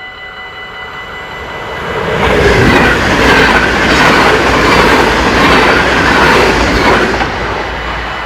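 A train passing over a level crossing: its noise swells about two seconds in, stays loud for about five seconds and then fades. Under it the crossing's warning bell keeps ringing.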